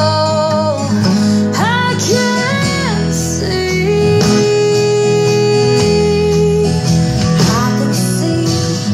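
A song: strummed acoustic guitar under a singing voice that slides between notes and holds one long note through the middle.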